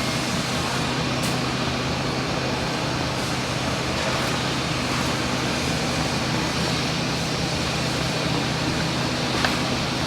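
Woodworking CNC drilling and milling machine running with a steady hum and hiss, with a few faint ticks.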